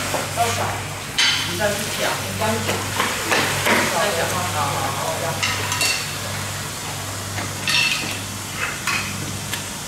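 Large knife cutting and scraping through a bluefin tuna's head and collar: wet crackling and scraping with several short, sharp knocks, over a steady low hum.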